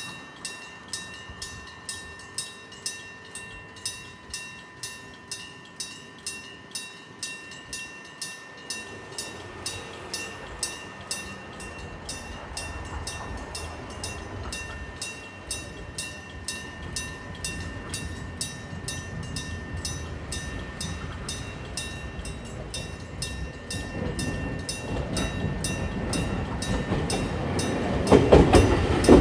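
Japanese railroad crossing warning bell ringing steadily at about two strikes a second, the "kan-kan" of a level crossing signalling an approaching train. An approaching train's rumble builds from about a third of the way in and turns sharply loud near the end as it reaches the crossing.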